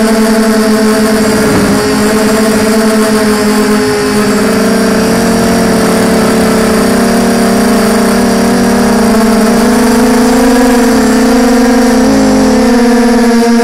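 FPV racing quadcopter's brushless motors and propellers whining as it flies, recorded on board. It is a loud, steady multi-tone hum whose pitch wavers up and down with the throttle, sagging a little a few seconds in and rising again near the end.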